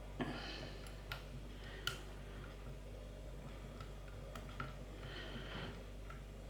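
A disc detainer pick turning the rotating discs inside an Oxford Boss disc lock's Abloy-type cylinder, giving a few small, irregularly spaced metallic clicks, the sharpest about two seconds in. Clicks like these are what the picker listens for as a disc sets into its gate.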